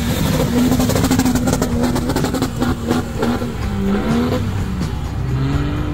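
Off-road 4x4 engine revving hard under load. Its pitch holds high, dips about four seconds in and climbs again, with a clatter of knocks and clicks over it.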